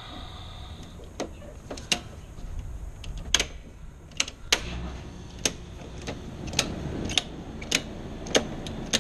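Residential circuit breakers being snapped back on one after another in a house electrical panel: about a dozen sharp clicks, irregularly spaced from half a second to a second apart, as the house circuits are re-energised.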